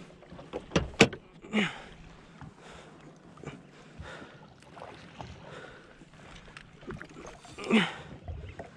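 Small waves lapping around a jet ski's hull while a fish is fought on rod and reel, with a few sharp knocks about a second in and two short falling vocal grunts, one soon after the knocks and one near the end.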